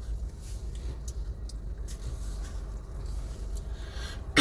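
Steady low road and engine rumble heard inside a moving car's cabin. Right at the end, a short, loud sound slides down in pitch.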